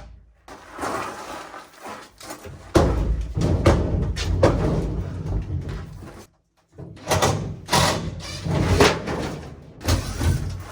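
Irregular knocks, bangs and clatter from tearing out a furnace and its ductwork, broken by two abrupt cuts to silence.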